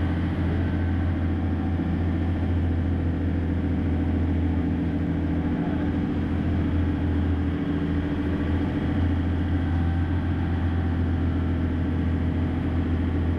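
A boat's inboard engine running steadily, a low, even drone that holds the same pitch and level throughout.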